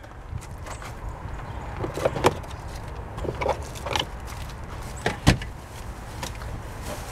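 Belongings being rummaged and moved inside a pickup truck's cab: scattered knocks, clicks and rustles, with one dull thump a little past the middle, over a steady low background rumble.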